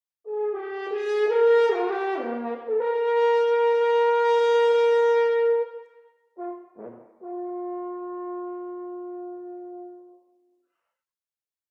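Unaccompanied horn playing: a quick run of rising and falling notes, then a long loud held note. After a short pause comes a brief swooping note that dips low, then a softer, lower held note that fades out about ten seconds in.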